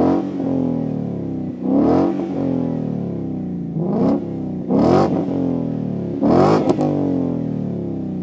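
2015+ Ford Mustang GT's 5.0 L Coyote V8 revved in short blips about five times, falling back to a steady idle between them. It breathes through a Magnaflow Street cat-back exhaust with straight-through mufflers and an X-pipe.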